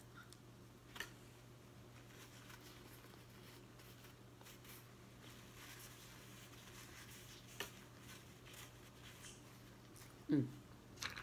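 Quiet eating of a peanut butter sandwich: faint chewing and soft mouth clicks over a low steady hum, with a brief vocal 'mm' about ten seconds in.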